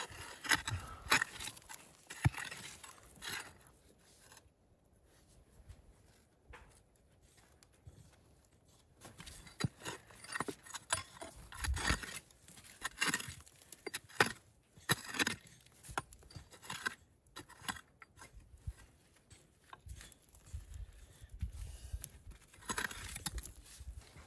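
A small hand digging tool scraping and chipping into rocky clay, with irregular metallic clinks and scrapes against stone. The strokes ease off about four seconds in and pick up again after about nine seconds.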